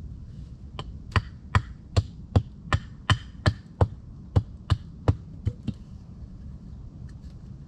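A quick, even run of about fourteen sharp blows of a hand tool on wood, nearly three a second, like chopping or hammering. The blows start about a second in and stop a couple of seconds before the end.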